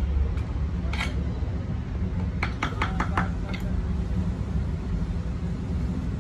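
Light clicks of a lead-acid battery plate pack, lead plates and separators, being handled: one click about a second in, then a quick run of about five near the middle. Under them runs a steady low rumble of vehicle traffic.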